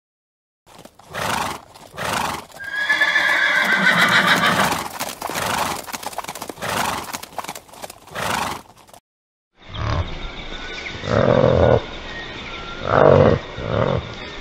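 Horses galloping, hoofbeats knocking, with one long, wavering neigh about three seconds in. After a brief break, a different recording follows with a faint steady hiss and a few short, low grunting animal calls.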